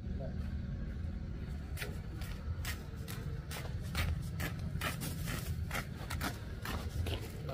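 Footsteps on a concrete road, sandals scuffing and slapping, irregular at about three a second from about two seconds in, over a steady low rumble.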